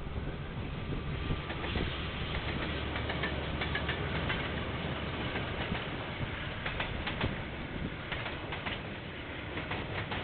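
KiwiRail train passing on the line: a steady low rumble with many sharp clicks from the wheels on the rails.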